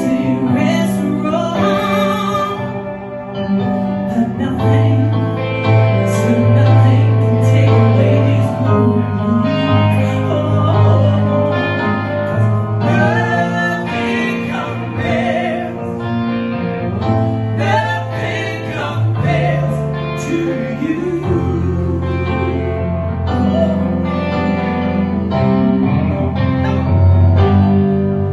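Male and female soul voices trading sung runs and ad-libs over an electric keyboard playing held chords with sustained bass notes.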